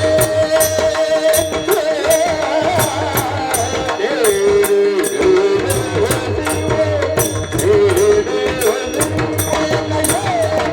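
Kirtan music: a sung melodic line that bends and slides over a held harmonium-like drone, with tabla and small hand cymbals striking a steady beat.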